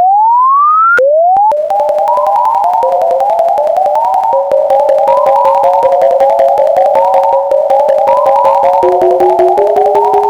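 Synthesized emergency alert alarm tones: a rising siren-like sweep for about the first second, a short second sweep, then a fast run of electronic beeps hopping up and down between a few notes, with rapid clicking running underneath.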